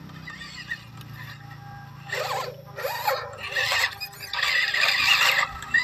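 Scale RC crawler trucks' electric motors and gearboxes whining in four short bursts of throttle, the last and longest near the end.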